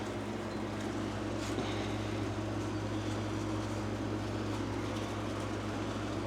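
A steady low machine hum, even in pitch throughout, with a few faint light ticks.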